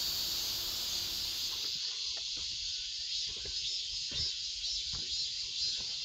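A steady chorus of summer insects shrilling in the forest, with a finely pulsing texture and a few faint knocks from about two seconds in.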